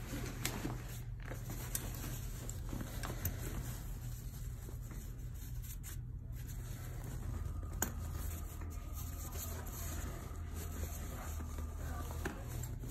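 Handling noise from a WonderFold X4 wagon's fabric rear basket: nylon rustling and scattered small clicks as its zipper ends are worked together by hand, over a steady low hum.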